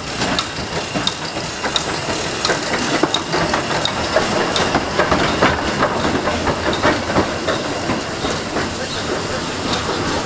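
WD Austerity 0-6-0 saddle tank steam locomotive running slowly past, with a steady hiss of steam and a regular clanking rhythm of its wheels and motion, about one clank every two-thirds of a second.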